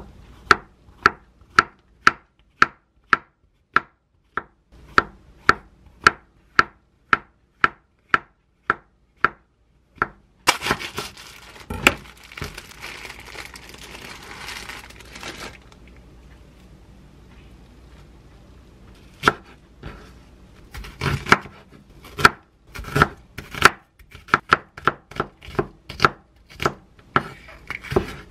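Chef's knife slicing button mushrooms on a wooden cutting board, about two even strokes a second for the first ten seconds. Then the plastic wrapper of a pack of enoki mushrooms crinkles for about five seconds, and from about nineteen seconds in the knife strikes the board faster and unevenly as enoki and onion are cut.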